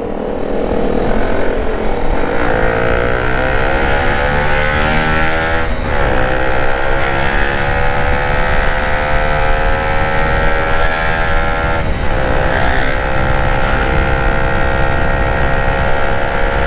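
Honda Sonic 150R's single-cylinder engine accelerating through the gears. Its pitch climbs, dips sharply at two upshifts about six seconds apart, then holds steady at cruising speed, over steady wind rush.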